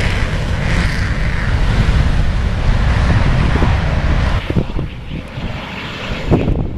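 Northrop F-5E Tiger's twin turbojet engines at takeoff power: a loud, rumbling roar as the jet rolls and climbs away, dropping off after about four seconds. Wind buffets the microphone.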